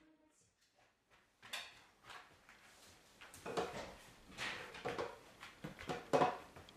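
A German shepherd moving on a laminate floor and nosing at glass scent jars set in a wooden board: a series of soft knocks and clinks, getting busier in the last few seconds, after a second or so of near silence.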